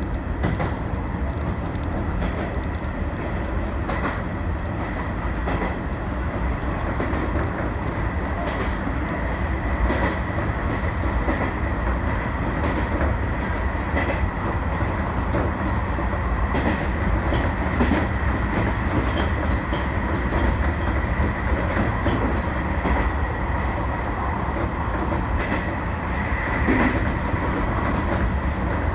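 Izuhakone Railway 3000 series electric train running along the line, heard from inside the front car: a steady rumble of wheels on rail with a faint steady high whine, and irregular clicks as the wheels pass over rail joints.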